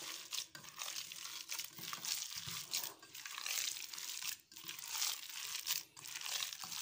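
A bare hand squeezing and kneading raw minced meat in a stainless steel bowl: moist crackling squishes, one squeeze after another with brief pauses between.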